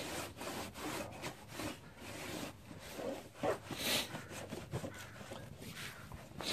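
Warm, damp cloth rubbing and wiping over a scooter's plastic body panels in irregular strokes, with one louder swish about four seconds in.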